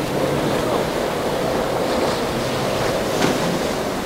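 Surf and wind noise with a single Suzuki 200 hp outboard running steadily as the center-console boat crosses choppy water, a faint even drone under the wash of the waves.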